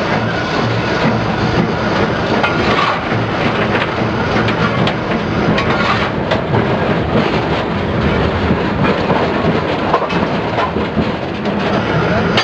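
1891 Baldwin steam tram No. 100 running along its track, heard from inside its cab: a loud, steady rumble and rattle with occasional sharper clacks from the wheels on the rails.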